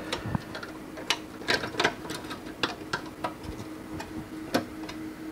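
Irregular clicks and taps of a circuit board being pressed and fitted onto its standoffs by hand, over a faint steady hum.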